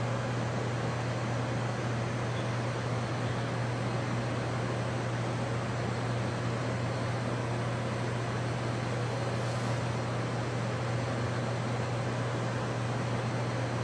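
Steady mechanical hum of building ventilation: a constant low drone under an even hiss.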